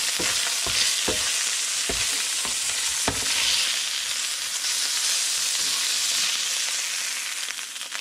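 Blackened red snapper pieces sizzling in a nonstick frying pan, with a steady hiss. A plastic slotted spatula scrapes and knocks against the pan about six times in the first three seconds as the pieces are worked and lifted, and the sizzle eases a little near the end.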